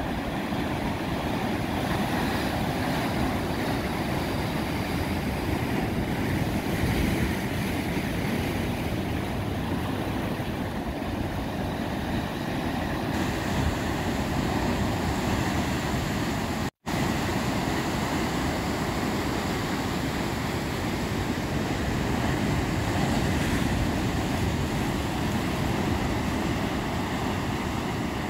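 Ocean surf breaking over rocks: a continuous steady rush of waves and foam, cut by a split-second gap of silence a little past halfway.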